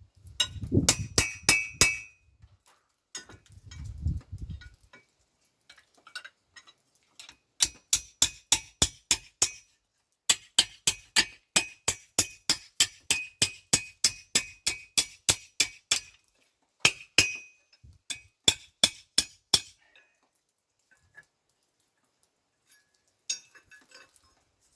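Hammer blows on a steel bar being bent cold on an anvil, each strike ringing. They come in runs of about three to four a second with short pauses between.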